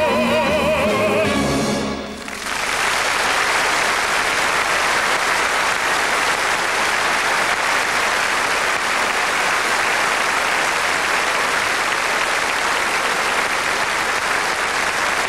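A male singer's final held note, with a wide vibrato, and the orchestra's closing chord end about two seconds in. Then a large theatre audience applauds, steady and unbroken.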